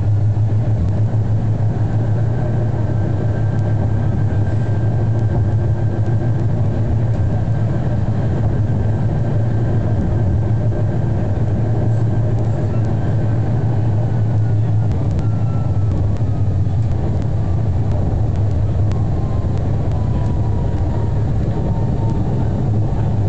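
Zurich VBZ tram heard from inside just behind the driver's cab while running along the track: a steady low hum with rolling noise and a faint whine. Near the end the whine falls in pitch as the tram slows for a stop.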